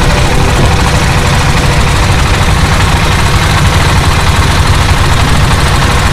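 Small wooden fishing boat's engine running steadily under way, a dense low rumble, with water and wind rushing past the hull as a constant hiss.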